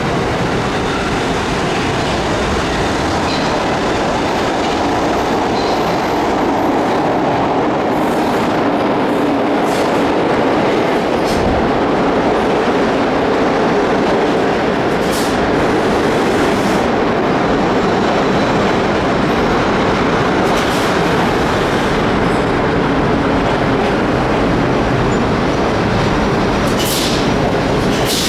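New York City subway train running along the track, a steady loud rumble of wheels and running gear, with a few sharp clicks in the second half.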